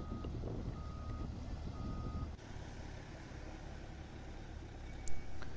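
Reverse alarm of a road-construction vehicle beeping three times, each beep about half a second long, over a low engine rumble. The rumble drops away after about two seconds.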